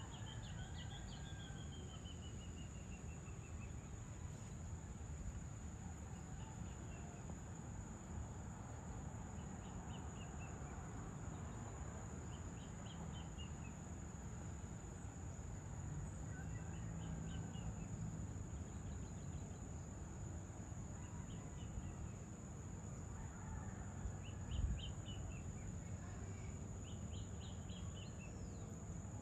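Evening outdoor ambience: birds give short runs of quick chirping notes every few seconds over a steady high-pitched insect drone and a constant low background rumble. There is a single brief thump late on.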